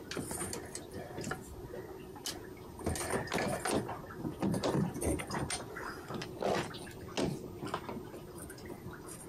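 Irregular knocks and clunks, several a second at times, over a low steady background.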